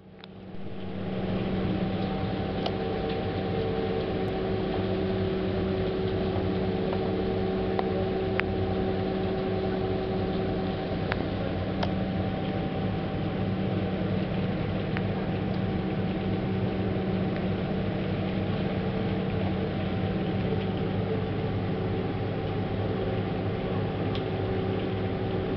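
Passenger tour boat's engines running at steady cruising speed: a constant drone with steady hum tones, under a steady rushing noise. It fades in over the first second or so.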